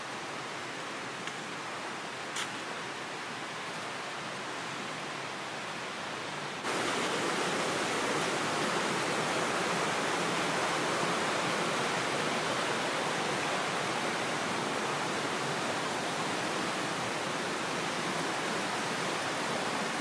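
Steady rush of a mountain stream and waterfall. It gets suddenly louder about seven seconds in.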